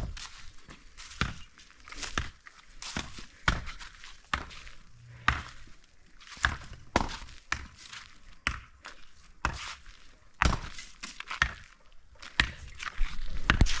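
Footsteps: a string of uneven thuds, one roughly every half second to a second.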